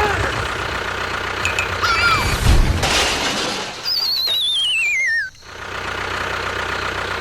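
Steady engine hum with a falling, warbling whistle sound effect, the cartoon 'falling' slide whistle, from about four seconds in. The whistle glides down for over a second and cuts off suddenly.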